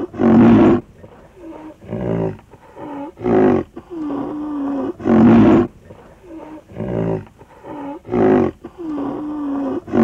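An animal's low, pitched calls, about one a second. The same run of five calls is heard twice.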